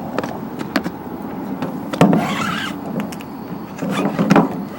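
Plastic recoil starter parts being handled: scattered clicks and knocks, with a brief scraping rub about two seconds in.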